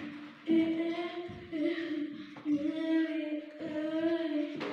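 A young girl singing unaccompanied, holding long steady notes in several short phrases with brief breaks between them.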